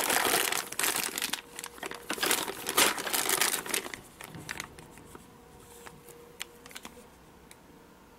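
Clear plastic zip bag crinkling as it is handled, heavily for about the first four seconds, then only a few faint rustles and clicks.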